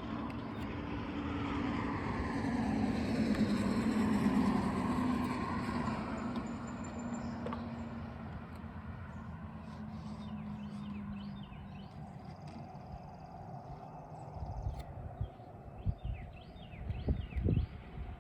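Louisville & Indiana diesel freight train passing: its engine rumble builds to a peak a few seconds in, drops slightly in pitch as it goes by, and fades away. Scattered clicks and knocks follow near the end.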